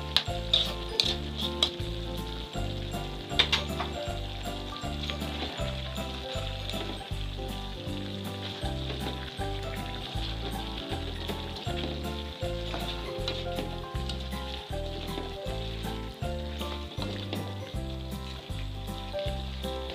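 Chicken pieces sizzling in a pan as they are stirred with a spoon, with a few sharp scrapes of the spoon against the pan in the first few seconds.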